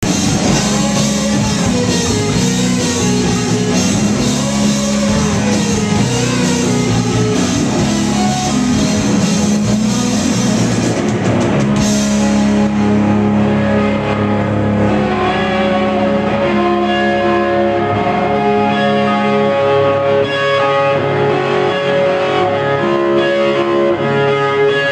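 Rock band playing live with electric guitars and drums, loud and dense. About halfway through, the playing settles into long held chords.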